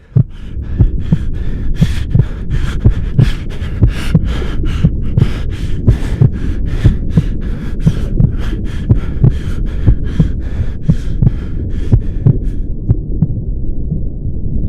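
A steady pulsing beat, about two and a half pulses a second, over a low hum. The pulses fade out near the end while the hum carries on.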